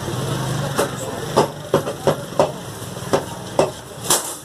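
Butchering in progress: about eight sharp, irregular knocks of a blade striking meat, bone and a chopping block.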